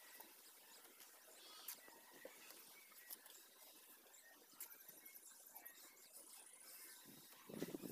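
Near silence: faint outdoor ambience with faint chirping and a few soft taps, then a brief louder noise just before the end.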